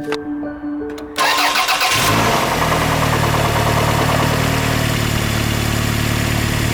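Toyota 3S-FE four-cylinder engine cranked by the starter about a second in, catching within a second and then idling steadily.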